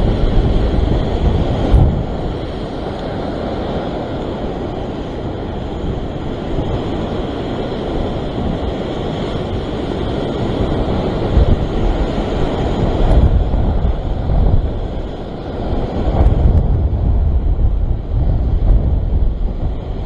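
Ocean swell surging and breaking in white water against a rock ledge, with wind buffeting the microphone in a steady low rumble that swells in stronger gusts about halfway through and again near the end.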